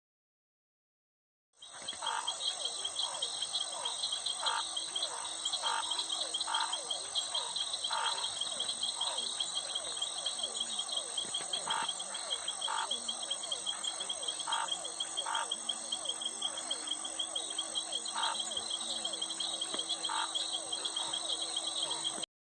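Chorus of frogs and crickets: a dense, steady high trill of crickets with short frog calls, about one a second at irregular spacing. It starts after about a second and a half of silence and cuts off suddenly near the end.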